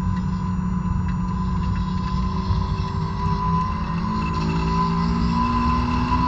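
2006 Honda S2000's 2.2-litre four-cylinder engine, stock exhaust and intake, heard inside the cabin at full throttle, its revs climbing from about 5,500 to over 7,000 rpm as the car accelerates.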